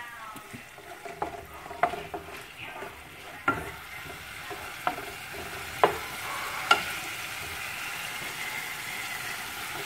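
Wooden spoon stirring a saucepan of tomato sauce on a gas stove, knocking against the side of the pot about six times, over the steady sizzle of the cooking sauce, which grows a little louder in the second half.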